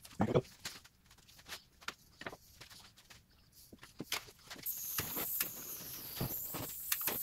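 A few footsteps and knocks of things being handled on a wooden workbench, then, from about two-thirds of the way through, a steady high hiss as a long-reach butane lighter burns over the filled end-grain board.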